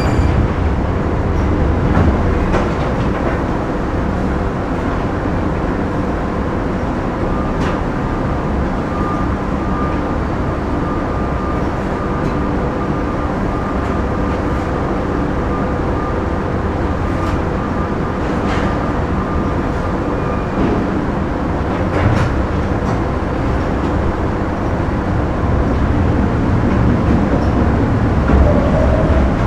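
Factory machinery ambience: a steady, dense rumble with a faint held whine through the middle and a few sharp clanks scattered through it.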